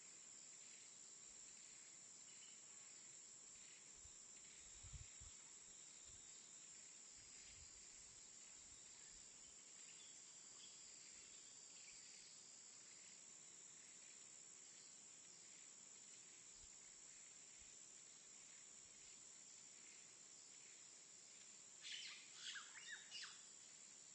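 Faint jungle ambience: a steady high-pitched insect drone with scattered bird calls, and a quick cluster of louder bird chirps near the end.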